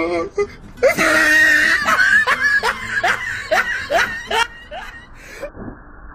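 A child laughing loudly in a string of short, high, rising 'ha' sounds, about three a second, dying away about five seconds in.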